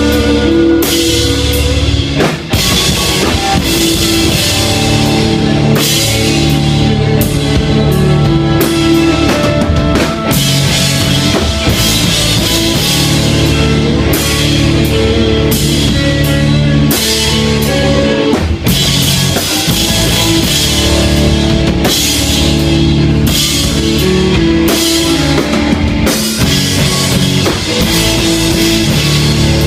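Rock music with a full drum kit, bass and guitar playing at a steady beat.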